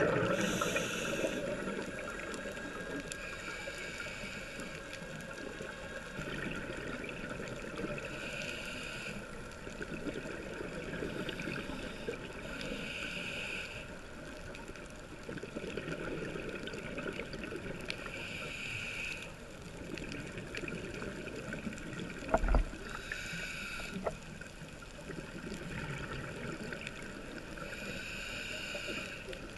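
Underwater ambience of a scuba dive: a diver's regulator exhalations releasing bubbles in a bubbly hiss, recurring every few seconds, under a steady muffled rumble of water. One short knock about two-thirds of the way through.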